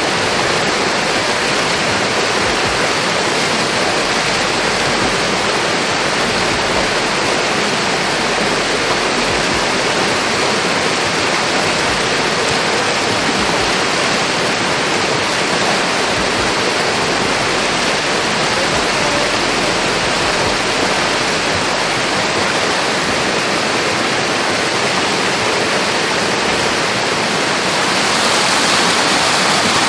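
Steady, loud rushing of water, an even hiss with no separate drops or splashes, growing a little louder and brighter near the end.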